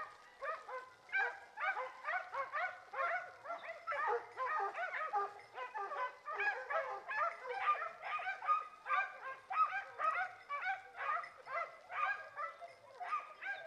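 A pack of hunting scent hounds barking and yelping in a dense overlapping chorus, several barks a second. The handler reads it as the pack baying 'a fermo', holding game at a standstill.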